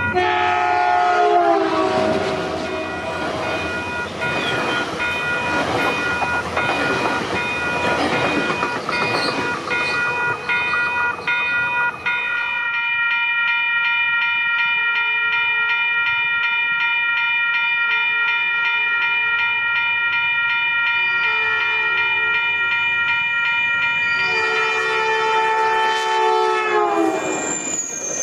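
A Caltrain commuter train's horn drops in pitch as the train passes about a second in, followed by the rumble and wheel clatter of the passing cars, with a grade-crossing bell ringing steadily. After a cut about halfway, the crossing bell rings on while an approaching train's horn sounds a series of blasts; the last one is long and drops in pitch as the train passes near the end.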